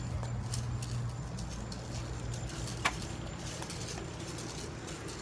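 Footsteps on the ground as people walk off to their sides, over a steady low rumble of wind or handling on the microphone. A single sharp click about three seconds in.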